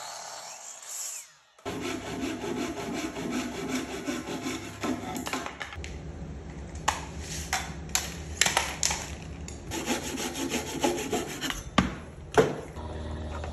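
A saw cutting through an untreated 2x12 wooden board in repeated strokes, with two sharp knocks near the end.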